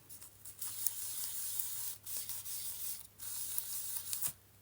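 Paper being rubbed, in three scratchy passes of about a second each with short pauses between.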